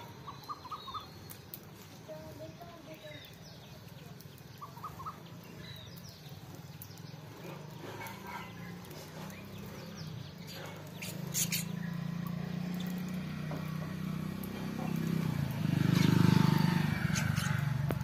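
House sparrows chirping in short, separate chirps, most of them in the first five seconds. From about ten seconds in a low rumble builds up, loudest shortly before the end.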